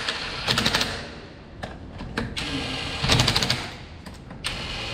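Impact wrench hammering wheel lug nuts tight on a car wheel: two rapid rattling bursts of about half a second each, the first about half a second in and the second just past three seconds.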